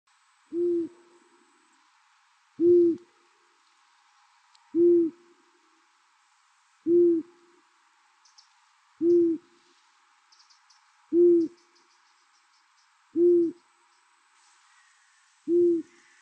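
An owl hooting: eight short, low single hoots, evenly spaced about two seconds apart.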